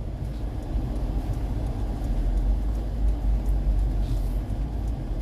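Car driving, heard from inside the cabin: a steady low rumble of engine and road noise that grows a little louder about two seconds in.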